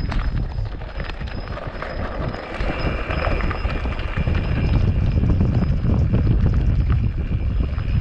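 Wind buffeting the microphone in a heavy low rumble, with the clatter and knocks of a mountain bike rolling over rocky ground.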